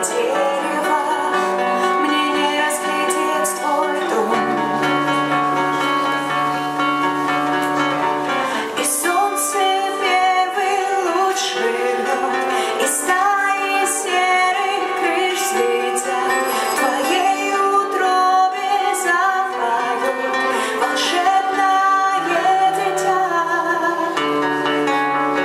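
A live band playing a song, with guitar, bass notes that change every few seconds and a singing voice.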